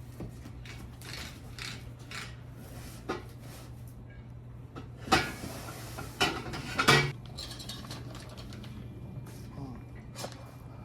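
Unboxing a set of catless mid pipes: metal parts clinking and knocking as they are handled, with a few louder knocks about five to seven seconds in, over a low steady hum.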